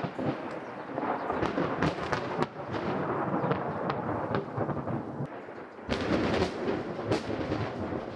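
Thunder rolling and crackling in a thunderstorm, with a second loud peal about six seconds in, over falling rain.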